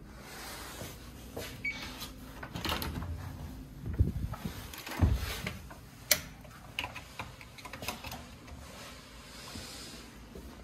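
Hotel room door with an electronic key-card lock being unlocked and pushed open: two dull thumps about four and five seconds in, a sharp click a second later, and light knocks and rustling.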